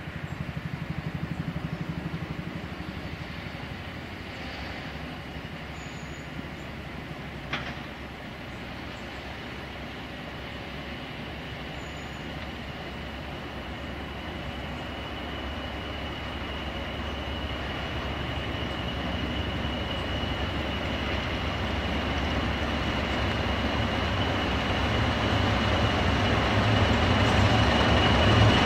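Class 37 diesel locomotive with a Class 20 coupled behind, hauling flask wagons toward the listener: engine and wheel noise grow steadily louder. A steady high whine strengthens near the end, and there is a single sharp click about seven and a half seconds in.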